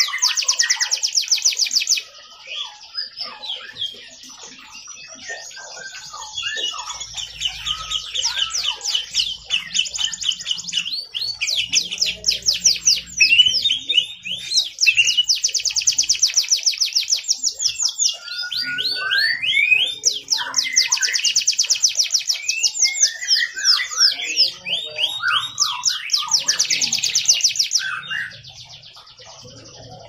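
Domestic canary singing a long, vigorous song: high, very fast rolling trills a few seconds each, linked by twittering notes and short slides, with a brief quieter stretch about two seconds in.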